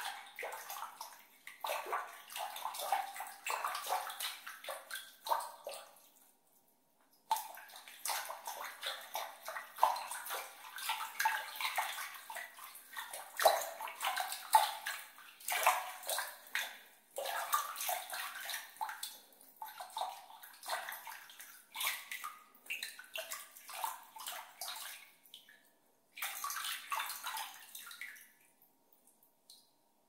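Water splashed and sloshed by hand in irregular bursts, breaking off briefly about six seconds in and again near the end.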